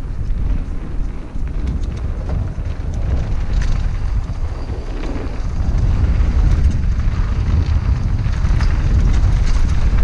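Wind buffeting a helmet-mounted microphone over the rumble of mountain bike tyres on a dry dirt trail, with scattered clicks and rattles from the bike. It gets louder about six seconds in.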